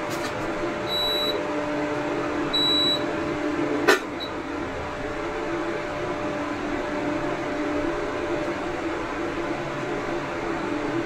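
Prestige PIC 2.0 V2 induction cooktop running at its 1300 W setting, its cooling fan giving a steady hum. Two short high beeps come in the first three seconds, and a sharp click about four seconds in.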